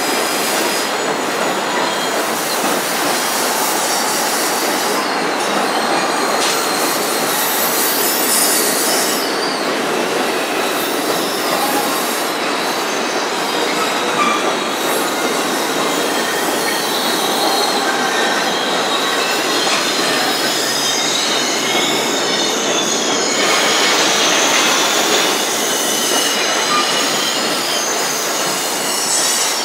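Amtrak Superliner bilevel passenger cars rolling past, a steady loud rush of wheels on rail with high-pitched wheel squeal on and off.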